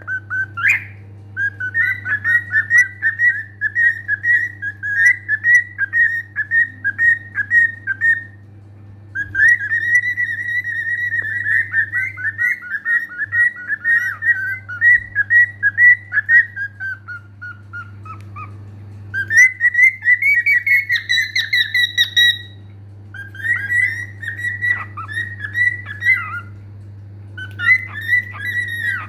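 Cockatiel whistling and warbling in long chattering phrases broken by short pauses, one phrase about halfway through falling in pitch as it trails off, over a steady low hum.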